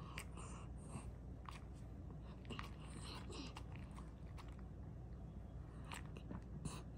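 Dog eating from a stainless steel bowl: irregular chewing and crunching, with small sharp clicks and soft 'hamu hamu' munching noises.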